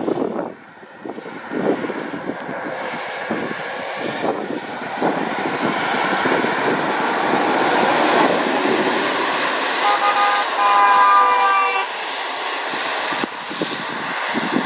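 A MAN lorry passes close by on a wet road: its diesel engine and tyre hiss on wet tarmac build to a peak as it goes by. About two-thirds of the way in, a horn sounds for roughly two seconds as the lorry pulls away.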